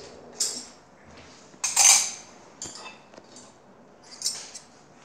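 Kitchenware clinking and clattering four times, the loudest about two seconds in.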